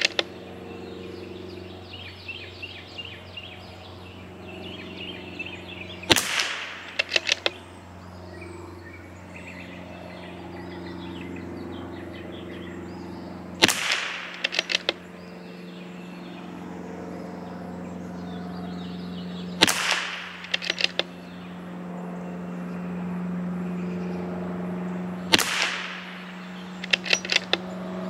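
Four shots from a CZ 457 MTR .22LR bolt-action rifle, about six seconds apart. Each is followed about a second later by a quick run of clicks as the bolt is worked to eject the case and chamber the next round. Birds chirp in the background.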